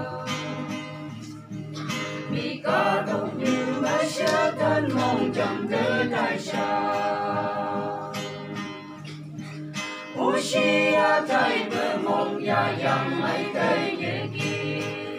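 A small mixed group of men and women singing a gospel song together, accompanied by an acoustic guitar, with brief lulls between phrases.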